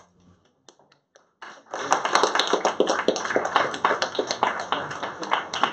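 Audience applauding, starting about a second and a half in: a dense patter of many hands clapping, with a few single taps and clicks before it.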